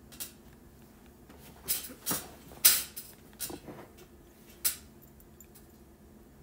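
Felt-tip marker strokes on paper while writing and drawing: a series of short, scratchy swipes, the loudest about two and a half seconds in.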